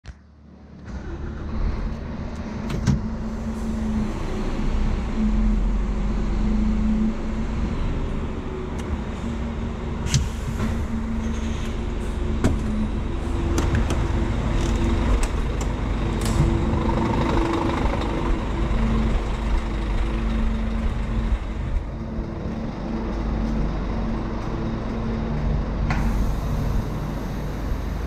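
Scania R440 truck's 13-litre straight-six diesel engine idling steadily, with a few sharp clicks and knocks as the cab door is opened and handled.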